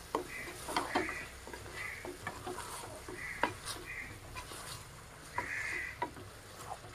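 A spoon stirring chicken and masala in a hot pot, scraping and knocking against the metal in irregular strokes, with short bursts of sizzling from the frying masala.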